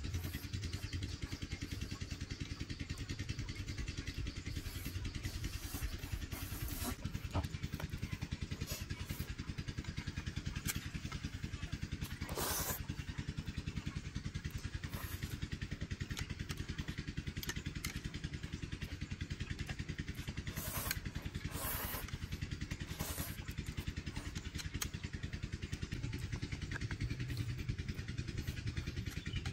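A small engine runs steadily throughout with a low, even pulsing. A few short, noisy slurps of noodles come through over it, around the middle and again near the end.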